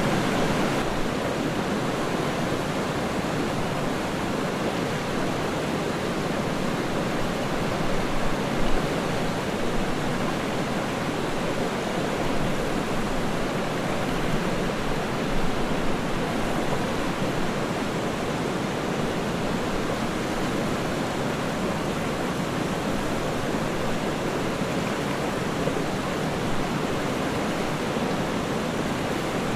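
Waterfall: a steady, unbroken rush of falling water, full and low in tone.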